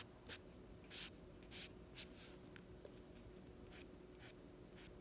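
Short scratching strokes of a drawing tool on paper: about five quick strokes in the first two seconds, then a few fainter ones.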